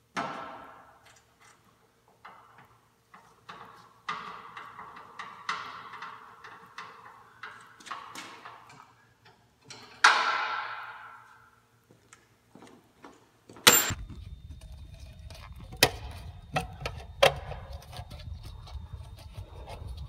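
Hand tools on a long extension bar working on the starter under a lifted truck: irregular metallic clicks and knocks, with two loud ringing metal clanks, one at the start and one about ten seconds in. In the last third a steady low rumble sets in under sharp repeated knocks.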